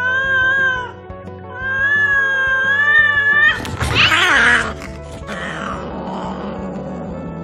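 Cats caterwauling in an aggressive standoff: two long, wavering yowls, then a harsh screech and hiss about three and a half seconds in as one cat lunges and swats at the other. Background music plays underneath.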